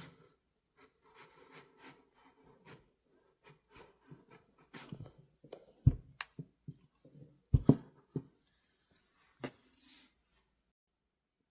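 Hand sewing on quilted cloth: soft scratchy rustling of fabric and needle, broken by a few sharp low knocks in the middle.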